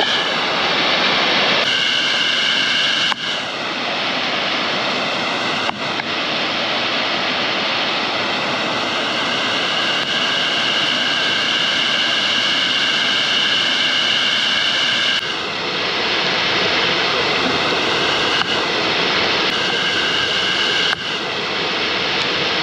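Waterfall roaring steadily into its plunge pool, running high after heavy rain.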